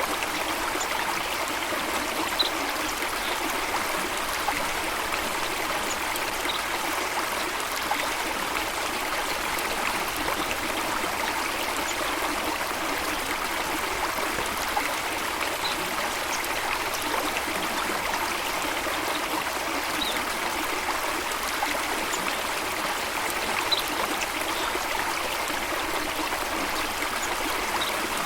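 Running water flowing steadily in an unbroken rush, with a few brief, faint high notes every few seconds.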